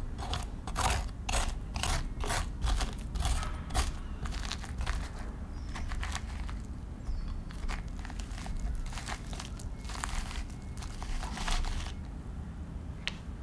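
Metal fork scraping seeds and stringy pulp out of a halved raw spaghetti squash: a run of short crunching scrapes, about three a second at first, then sparser, with a denser stretch of scraping near the end.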